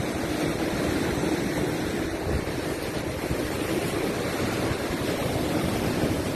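Ocean surf breaking on a rocky shore: a steady rush of waves washing over the rock ledges.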